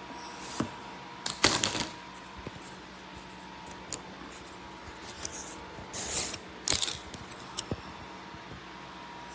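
Kitchen knives being handled: a few short clicks and scrapes at uneven intervals, the longest two about a second and a half in and about six seconds in.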